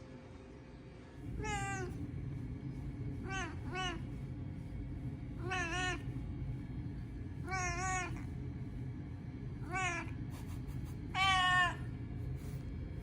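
Domestic cat meowing: seven short meows about two seconds apart, two of them in quick succession, with the last one longer and louder. A steady low background hum runs underneath, starting about a second in.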